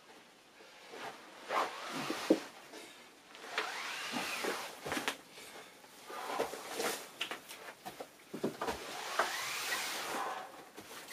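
Sand-filled fabric gunny sack, about 58 kg, dragged across carpet on a resistance band: scraping, rustling slides in a few pulls, with squeaky rising-and-falling glides during the longer pulls and scattered light knocks.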